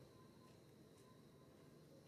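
Near silence: faint background hiss with one faint click about halfway through.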